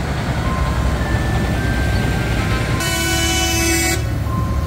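Low, steady rumble of tractor engines on the road, with one loud horn blast lasting about a second, a little past halfway through.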